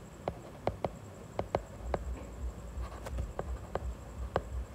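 Stylus tapping on a tablet screen while handwriting: about ten short, sharp taps, irregularly spaced.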